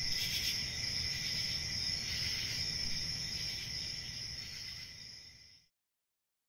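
Steady chorus of crickets over a low rumble of outdoor background noise, fading out and cutting to silence about five and a half seconds in.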